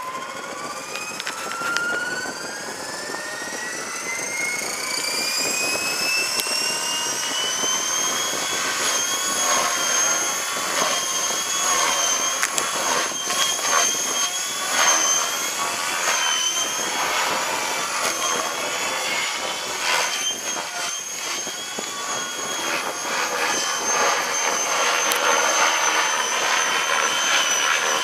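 Atom 500 model's motor spooling up: a whine that rises in pitch for about eight seconds, then holds steady with slight wavering. Wind buffets the microphone throughout.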